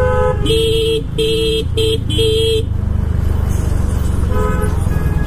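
Vehicle horns honking in road traffic: a horn note that stops just after the start, then four honks in quick succession, and one more short honk near the end. Under them runs a steady low rumble of wind and road noise from riding.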